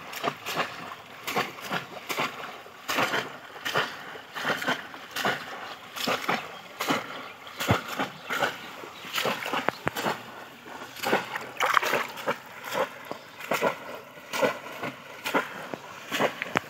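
Pond water splashing and sloshing again and again as hands grope through it for fish, in short irregular splashes about one or two a second.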